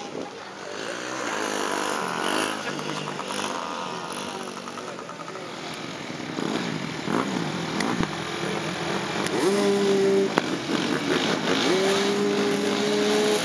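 Small mini dirt bike engines. First one rides off with its pitch rising and falling; then a small engine revs up twice in the second half, each time holding a steady high note for a second or so.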